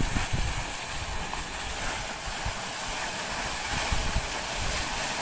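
Borewell blowing out, a jet of muddy water and air gushing and splashing from the wellhead in a steady rushing hiss. Wind buffets the microphone in uneven low thuds.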